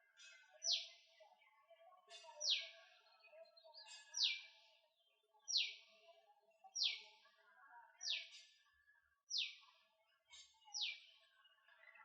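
A bird repeating a sharp, high call that sweeps steeply downward, eight times at intervals of about a second and a half. Softer, lower-pitched chirping from other birds continues underneath.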